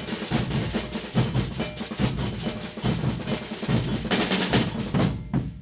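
Brazilian percussion ensemble drumming together: deep bass-drum strokes under a dense, rolling snare-drum rhythm. The playing stops about five seconds in and the sound dies away.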